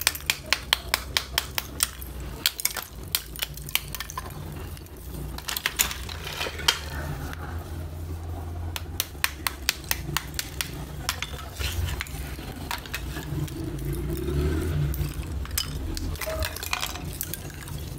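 Small hammer tapping and cracking layered slabs of roasted multani mitti (fuller's earth clay): a quick run of sharp taps, about four or five a second, for the first few seconds. In the middle the brittle clay pieces are shuffled and rub and clink together, and there are shorter runs of taps near the middle and near the end.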